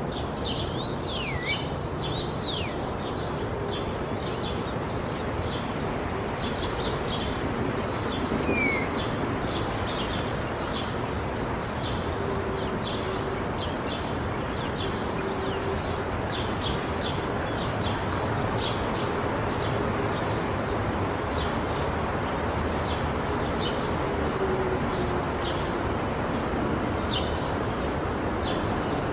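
Residential daytime ambience: many short bird chirps and a few whistles over a steady, low traffic rumble.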